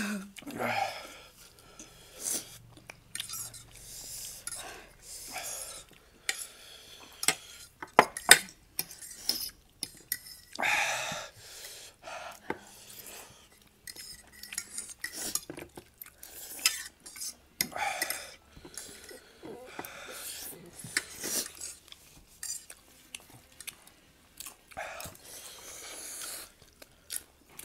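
Metal forks clinking and scraping on ceramic plates, mixed with noodles being slurped and chewed in short irregular bursts.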